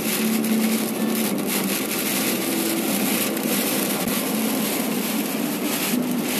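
Car driving along a road: steady tyre and wind noise heard from inside the car, with a low hum coming and going.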